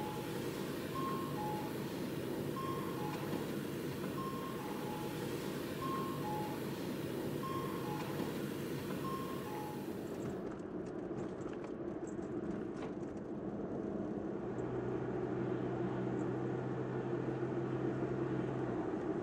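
Busy city-crossing ambience with a two-note electronic chime, high then low, repeating about every second and a half, typical of a Japanese pedestrian crossing signal. About ten seconds in it gives way to the steady road and engine noise of a kei van driving, with a low hum near the end.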